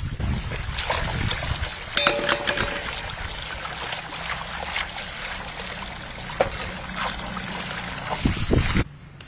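Water running from a hose into a plastic basin while hands splash and rub raw chicken in it, washing it. The sound cuts off suddenly shortly before the end.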